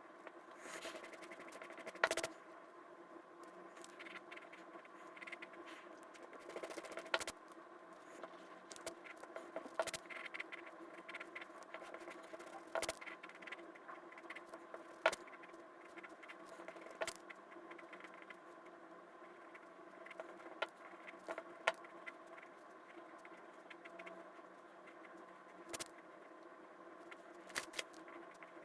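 Pen scratching and tapping during drawing, with irregular sharp clicks every second or two over a faint steady electrical hum.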